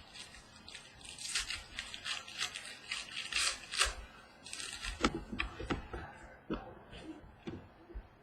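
Football trading cards being handled: papery swishes and rustles as cards slide over one another, then a series of light clicks and taps about halfway through.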